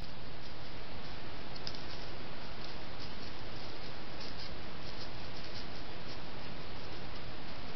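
Steady hiss from a trail camera's built-in microphone, with faint scattered ticks.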